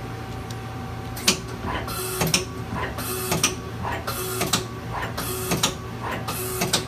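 Tool turret of a 2007 Mazak Nexus QTN 250MSY CNC lathe indexing station after station. Starting about a second in, there is a clunk and a short hiss roughly once a second, over the machine's steady hum.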